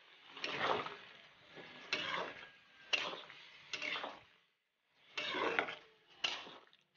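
Metal spatula stirring chicken and potato curry in a kadai, scraping and knocking against the pan about once a second, with a short pause in the middle.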